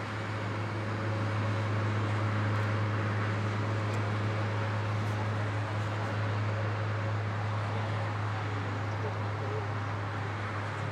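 Steady low drone of a towbarless aircraft tug pulling a Boeing 777-300ER, growing slightly louder in the first couple of seconds as it approaches, then holding level.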